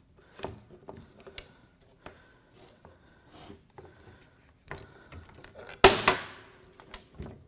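Small metallic clicks and scrapes as a pry bar works the rocker-arm assembly loose from a Honda J35 V6 aluminium cylinder head and it is lifted off. About six seconds in there is one loud metal clank with a brief ring.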